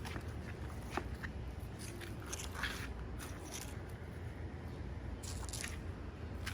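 A puppy chewing, with scattered crunches and clicks over a low steady hum.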